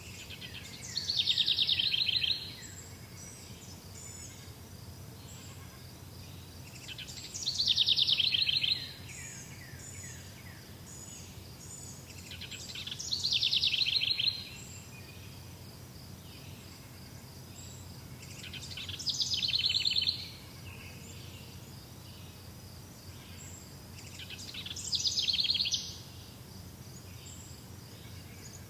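A songbird repeating the same short, fast trilled song five times, about every six seconds, each phrase growing louder and then stopping abruptly. A steady high insect buzz runs underneath.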